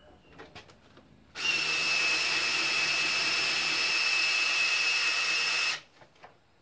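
Cordless drill driving a Ford V8's oil pump through the distributor hole with an oil-pump priming tool. It runs steadily with a high whine for about four seconds, then stops. A few light clicks come before it starts. The pump is being primed to push oil through the bearings and up to the top end before the engine is started.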